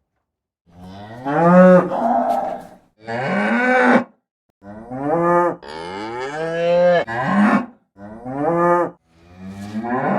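Cattle mooing: a run of five or six drawn-out calls starting about a second in, each rising in pitch and then holding, with short pauses between them.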